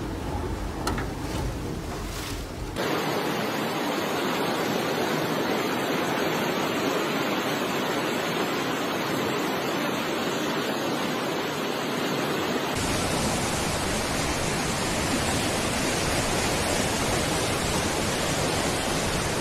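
Fast-flowing floodwater rushing, a loud steady noise. It changes in tone about three seconds in and again about two-thirds of the way through.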